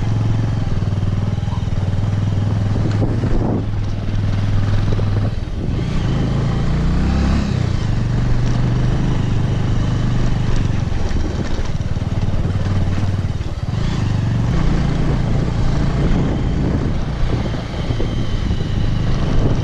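Motorcycle engine running as the bike rides along, its pitch shifting up and down a few times with the throttle.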